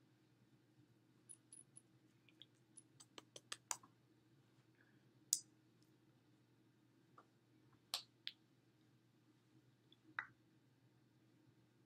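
Faint clicks and taps of hands and fingers striking each other while signing, over a low steady room hum. There is a quick run of about seven small clicks three to four seconds in, then a few single, sharper taps.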